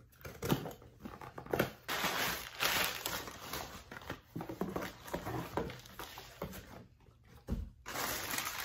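A package being opened by hand: irregular rustling, crinkling and scraping of packaging in uneven bursts, with a low thump about three quarters of the way through.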